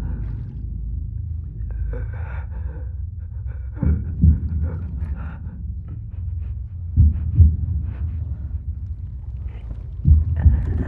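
A person breathing heavily and raggedly over a slow heartbeat, a muffled double thump about every three seconds, above a low steady rumble.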